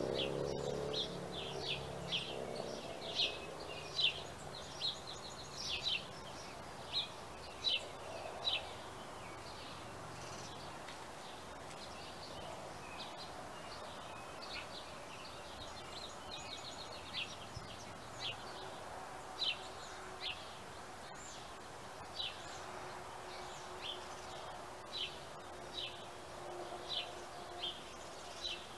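Birds chirping in a dawn chorus: many short, high chirps, coming thick and fast for the first ten seconds or so and more sparsely after, over a steady faint background noise. A low droning hum sounds at the very start and fades within a few seconds.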